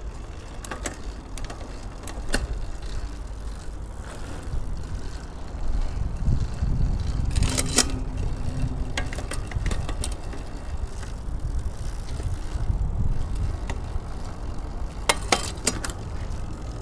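Road bicycle drivetrain turning as the gears are tested. Sharp clicks from shifting come scattered through, with clusters about seven and fifteen seconds in, over a steady low rumble.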